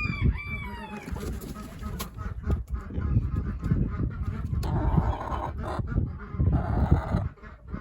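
Domestic poultry calling: a few calls that rise and fall in pitch in the first second, then two harsher, noisier calls about five and seven seconds in, over a low rumble with scattered knocks.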